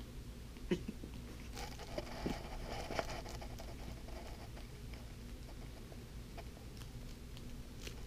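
Pomeranian puppy rolling on her back on carpet and mouthing a plush toy: faint rustling and scuffing of fur and fabric, with a few small clicks of chewing.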